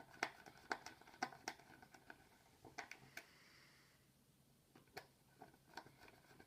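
Faint, irregular light clicks and taps of small screws being set into a diffuser's plastic retaining ring by hand, with a short quiet spell a little past the middle.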